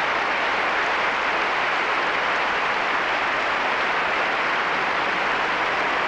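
Large arena crowd applauding steadily, a dense even wash of clapping.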